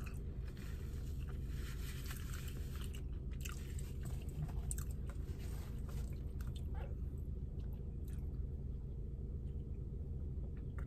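A person chewing and biting a sandwich close to the microphone, with small crunches and mouth clicks, over a steady low hum.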